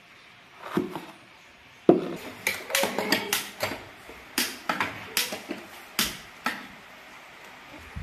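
A knife chops once on a plastic cutting board about a second in. Then a sharp knock is followed by a run of irregular clicks as a long-nosed gas lighter is clicked at a gas stove burner to light it.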